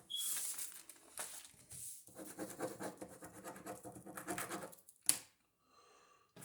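Ballpoint pen scribbling on paper in several scratchy strokes, a test of whether the dried ink flows again, then a single sharp click about five seconds in.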